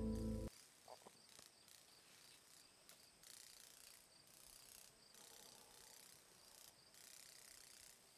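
Acoustic guitar music stops about half a second in. After it, faint insects buzz in pulses that come and go every second or so, with a couple of faint clicks about a second in.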